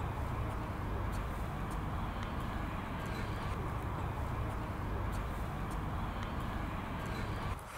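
Steady low rumble of outdoor background noise with a hiss above it and faint high ticks, dropping off abruptly near the end.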